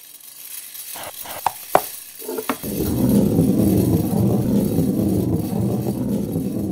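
A few sharp clicks, then from about two and a half seconds in a loud, continuous low rumble.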